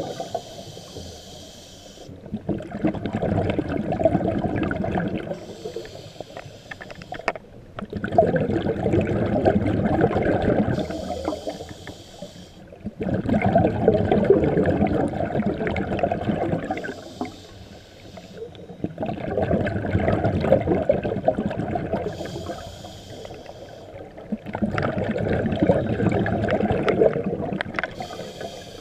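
Scuba diver breathing through a regulator underwater: a short hiss on each inhale, then a longer bubbling rush of exhaled air, repeating about every six seconds.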